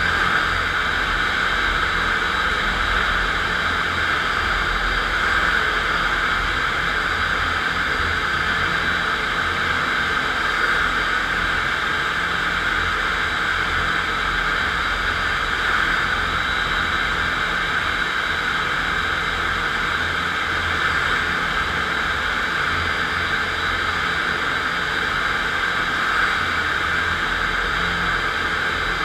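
FastPrep concrete floor grinder running steadily with 16-grit single-rhombus diamond grinding plates cutting a concrete floor: an even grinding hiss over a low motor rumble.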